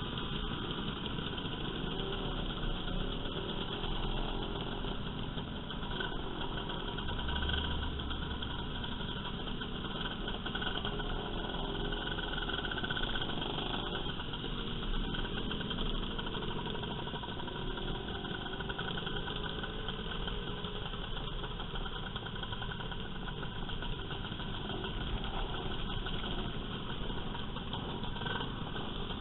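Several motor scooter engines running at low speed in a group, their engine notes rising and falling as they pull away and slow down.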